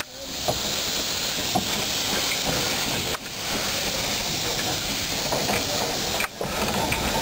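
Narrow-gauge steam tank locomotive letting off a steady, loud hiss of escaping steam as it moves slowly past. The hiss drops away briefly twice, about three seconds in and again about six seconds in.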